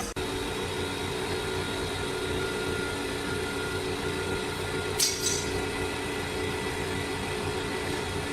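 Sawmill machinery running with a steady hum, and a short sharp burst of noise about five seconds in.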